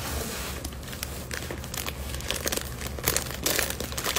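Clear plastic bread bag crinkling irregularly as it is gripped and handled, with louder, denser crackles near the end.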